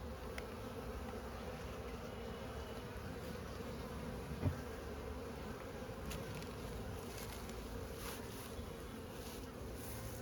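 A honeybee colony buzzing steadily around a nuc's frames as they are moved into a hive box. One dull knock about four and a half seconds in, and a few light clicks near the end.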